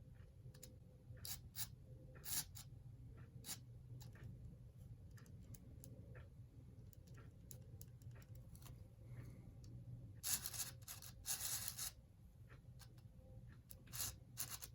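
Vintage Bachmann N-scale Mikado model steam locomotive being test-run, faint: a low steady hum with scattered light clicks and two brief louder scraping bursts about ten and eleven seconds in. It runs only partly, the sign of a neglected model that needs stripping down.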